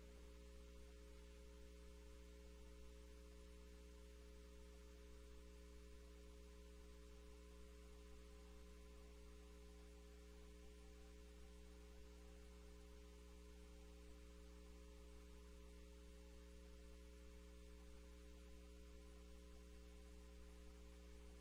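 Near silence with a faint, steady electrical mains hum, made up of a low tone and several evenly spaced overtones.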